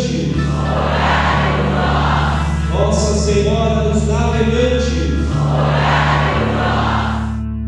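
Choir singing a religious hymn over steady low held accompaniment, the sung phrases rising and swelling. The music cuts off sharply near the end.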